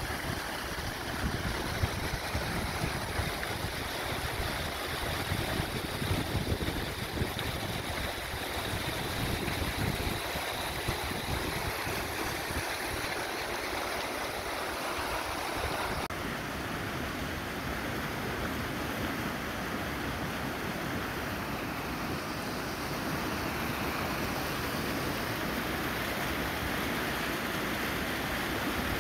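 A rain-swollen creek of muddy floodwater rushing and churning where a side channel pours into it, a steady rushing noise. The sound shifts a little over halfway through.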